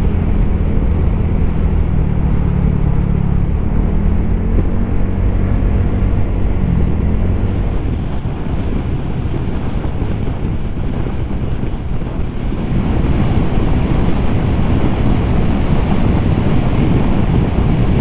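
Honda Giorno 160 scooter's single-cylinder engine running under way, its pitch climbing a little as it gathers speed in the first few seconds. Wind rushing over the rider's microphone grows stronger in the second half and comes to cover the engine.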